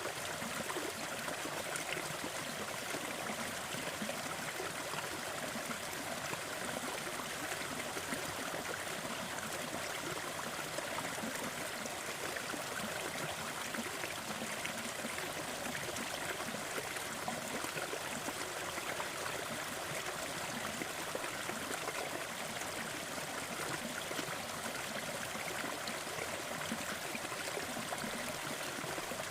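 Small waterfall in a forest: water spilling and trickling over rocks with a steady, even rush.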